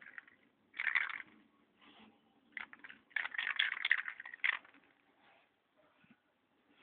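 Aerosol spray-paint can hissing in short spurts: a brief spray about a second in, then a longer run of spurts from about three to four and a half seconds in.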